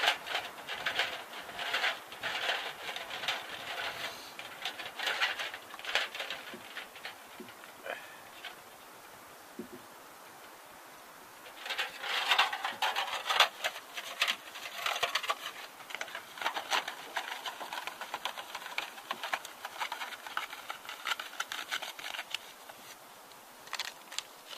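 Crinkling, rustling and clicking from hands working camp cooking gear, including the aluminium-foil windscreen around a soda-can stove. It comes in two stretches of several seconds each, with a pause of a few seconds between them.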